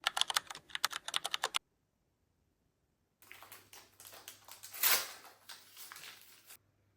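Typing on a computer keyboard: a quick run of key clicks that stops abruptly after about a second and a half. After a short gap of silence, softer rustling and scraping follows over a faint low hum, with one louder swish about five seconds in.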